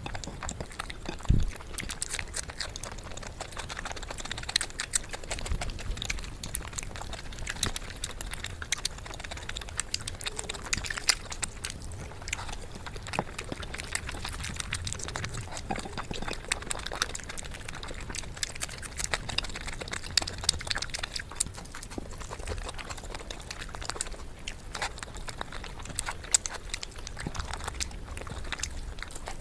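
Close-miked eating sounds: wet chewing and lip smacking with many small clicks and crackles as whole spiced chicken is torn apart by hand. A single louder thump comes about a second in.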